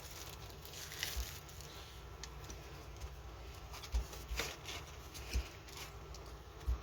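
Scattered light rustling and small taps from plastic diamond-painting kit packaging and accessory trays being handled.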